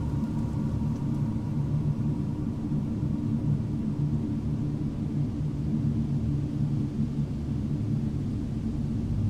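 Ambient music: a steady, low rumbling drone made of sustained deep tones.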